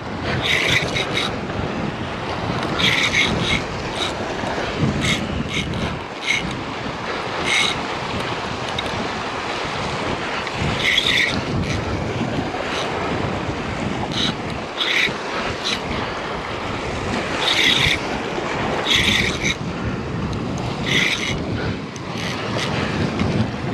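Wind buffeting the microphone and surf washing against jetty rocks, a steady rushing noise. About a dozen short bursts of higher hiss break through it at irregular intervals.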